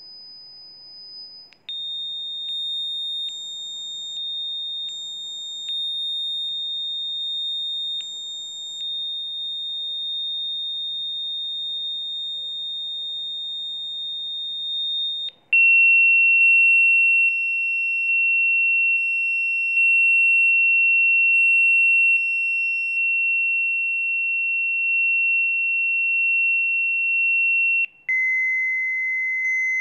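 Steady high-pitched electronic sine tones of a Rife frequency sequence, one held tone at a time. The tone drops to a lower pitch three times: about two seconds in, halfway through, and near the end.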